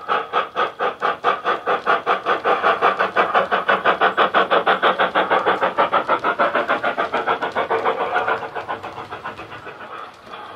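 Digital sound decoder in a model steam locomotive playing GWR Hall class steam exhaust through its speaker: rapid, even chuffs as the locomotive runs past, fading away about eight seconds in.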